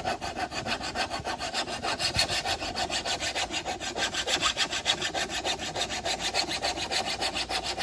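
Flat hand file rasping along the edge of a steel lawn mower blade in rapid, even strokes, sharpening the cutting edge.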